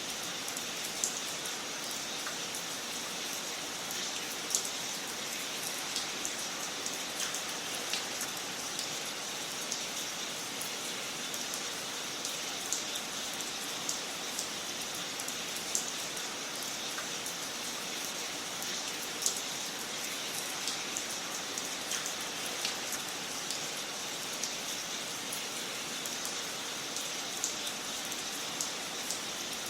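Wood fire crackling in a fireplace: a steady hiss with irregular sharp pops and snaps.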